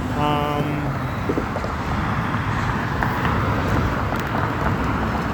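Steady road traffic noise from passing cars, with a short held pitched tone in about the first second.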